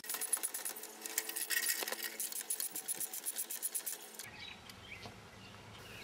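Socket ratchet clicking rapidly as the brake caliper bolts are run in, stopping about four seconds in.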